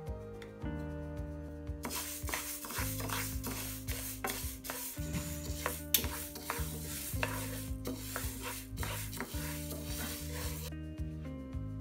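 A wooden spatula stirring dry split moong dal in a nonstick pan as it dry-roasts: a scratchy rustle of grains sliding and scraping, starting about two seconds in and stopping near the end. Background music plays under it.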